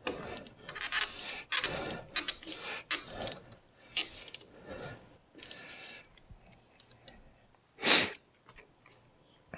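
Screws, screwdriver and metal door-lock hardware being handled: a run of irregular clicks, knocks and rattles for the first few seconds, then sparser faint ticks, with one loud short rush of noise about eight seconds in.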